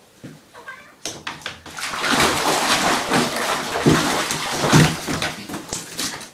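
Water splashing and sloshing in a bathtub as a pet is held in the bath water, starting about a second in.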